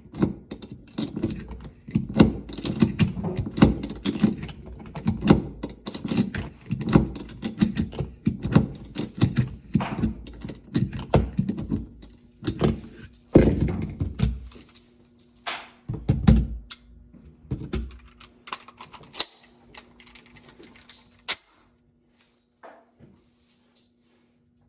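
Rapid, irregular clicks and clatter of small hard objects being handled, thinning out after about 18 seconds, with a faint steady hum in the second half.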